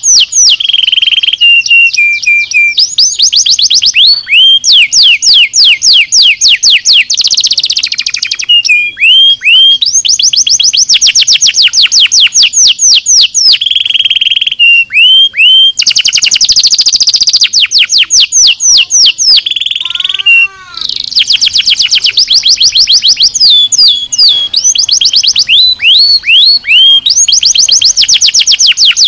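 Domestic canary singing without pause: long fast trills of rapid falling notes, about ten a second, shifting now and then into slower phrases before racing on again, with a brief break about twenty seconds in.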